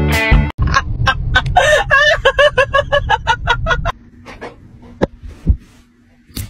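A fast run of short clucking calls, about four a second, that stops abruptly about four seconds in. A much quieter stretch follows, with a faint steady hum and a few soft clicks.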